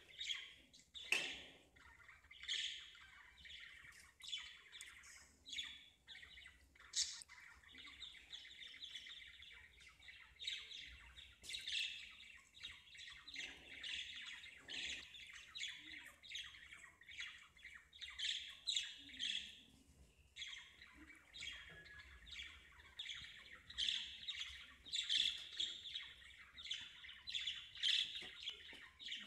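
Birds chirping and squawking in a busy, continuous chatter of short, high calls, with a sharp click about a second in.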